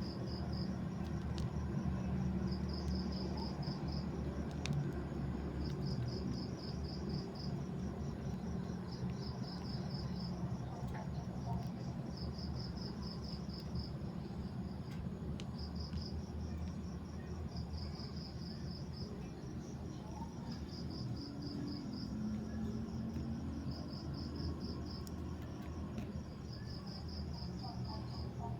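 A cricket chirping: high trills of rapid pulses, each about a second long, repeating every two to three seconds over a steady low rumble.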